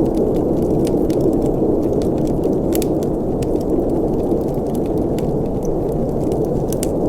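Wood fire burning in a fireplace: a steady low rush of flames with frequent, irregular sharp crackles and pops from the burning wood.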